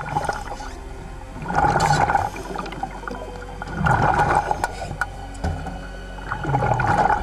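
Background music over underwater churning and bubbling as a great white shark thrashes against a steel dive cage; the water noise surges three times.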